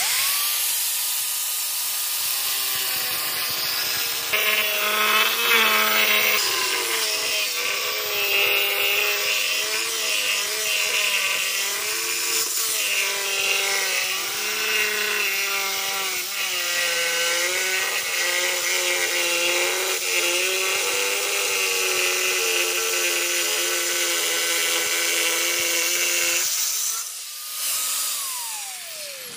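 Handheld electric power tool spinning up, then cutting under load for over twenty seconds, its pitch dipping and recovering as it works, before winding down near the end.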